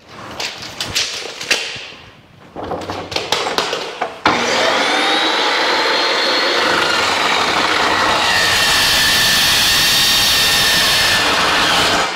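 A few knocks and clanks as a steel bar is set against the saw. About four seconds in, a metal-cutting chop saw starts and cuts through the steel: a loud, steady grinding that stops suddenly near the end.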